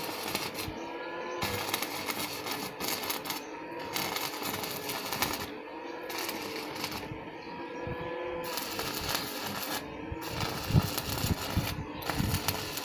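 Stick (arc) welding on steel: the electric arc crackles and sizzles in runs of one to two seconds, stopping briefly between runs. A few dull knocks come near the end.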